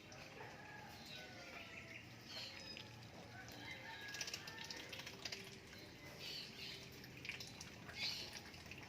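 Several birds chirping and calling in short, repeated notes, faint against a steady background hiss.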